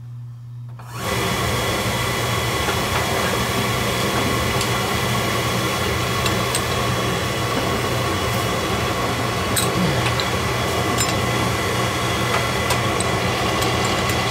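Oil burner switching on abruptly about a second in and running steadily, its motor and fuel pump bleeding the new oil line: oil and air are pushed out through an open bleeder into a catch jug to purge air from the line.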